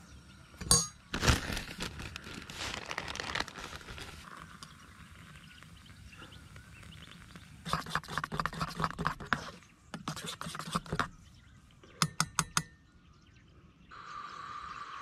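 A teaspoon stirring coffee in a camp mug, clinking against the mug's sides in quick runs, then tapped four times on the rim with a short ring. A few knocks and rustling come first, as granules are spooned in from a plastic bag.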